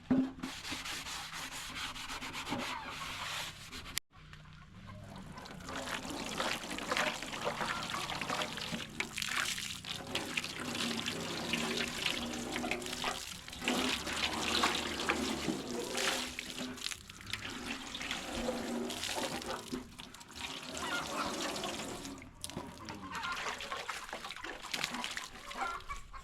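Continuous rubbing and scraping with some watery sounds, briefly cutting out about four seconds in.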